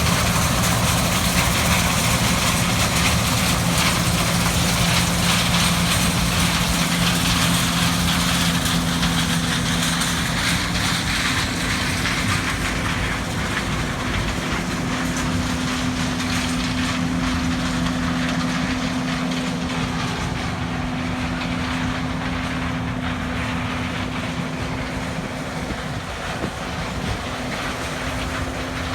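Heavy harvest machinery running steadily: a diesel engine's drone over a clattering rumble. The engine's pitch shifts slightly about halfway through, and the sound eases a little toward the end.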